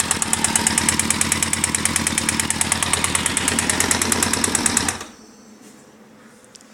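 Engine running with a rapid, even knock, then shut off abruptly about five seconds in. The knock seems to come from the bottom end, which the owner takes for a connecting rod.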